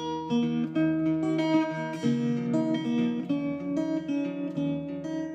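Acoustic guitar music, a run of plucked notes.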